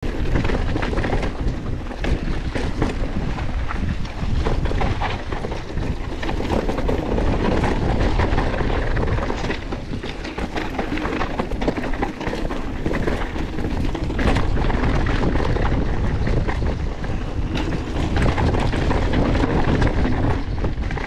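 Mountain bike descending a rough dirt and gravel trail at speed: a constant rumble of wind buffeting the action-camera microphone over the crunch of tyres on gravel, with frequent rattles and knocks from the bike over the bumps.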